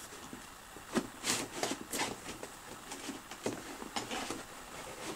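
A cardboard box being handled and worked open: scattered soft scrapes, rustles and light taps of fingers and packaging, with a few sharper ones between about one and two seconds in.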